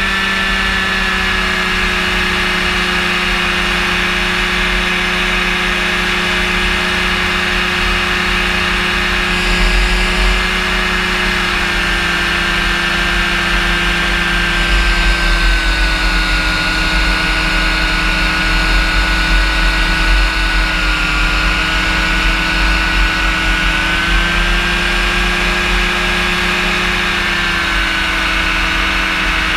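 Rotax engine and propeller of a powered parachute running steadily in flight, its pitch dipping slightly about halfway through and rising again later. A low wind rumble on the microphone swells now and then.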